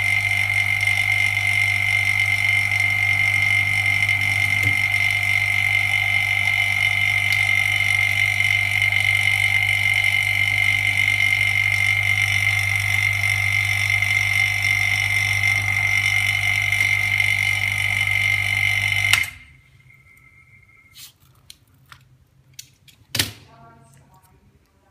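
Electrical machine running with a steady low hum and a high whine, switched off abruptly about 19 seconds in; then a few small clicks and one sharp knock near the end.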